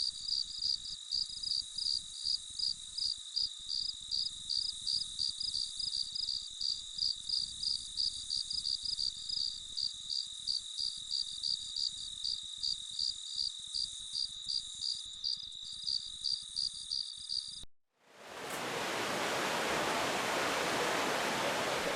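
An insect calling in a steady high-pitched pulse, about three pulses a second, which cuts off suddenly about 18 seconds in. After a brief gap comes the even rush of a waterfall.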